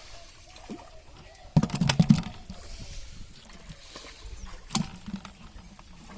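Water splashing and slapping: a quick burst of sharp slaps about a second and a half in, and one more near five seconds.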